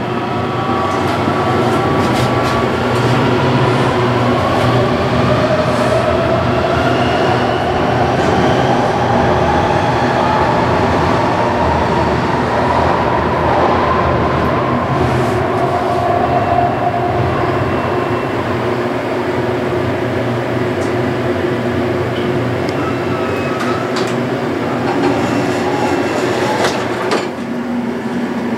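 Metro train running through the station: a steady rumble with a motor whine that glides up and down in pitch, and a few sharp clicks near the end.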